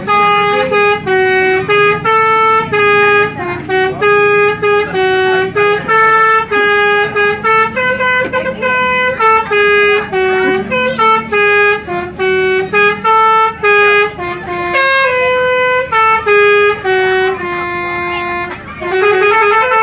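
Bus 'telolet' horn playing a tune: a quick run of steady horn notes of changing pitch, one after another, with a low engine hum under it for about the first two-thirds.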